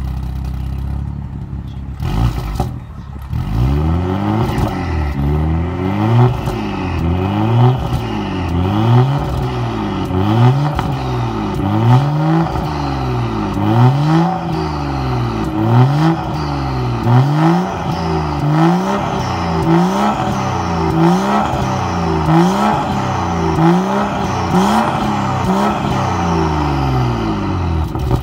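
BMW M2 (F87) N55 turbocharged 3.0-litre straight-six idling briefly, then revved over and over in quick blips, each rising and falling in pitch, about one a second. It runs through a Stone turboback exhaust with catalytic downpipe, its exhaust valves closed.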